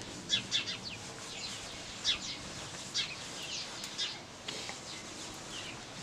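Small birds chirping, short high chirps coming in little clusters every second or so over a faint background hiss.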